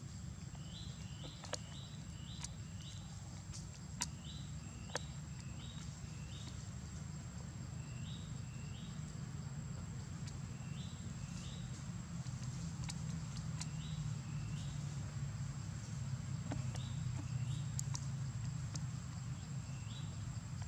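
Forest ambience: a steady low rumble under a constant high-pitched whine. Short high chirps come in quick runs of two to five every second or two, with a few sharp clicks in between.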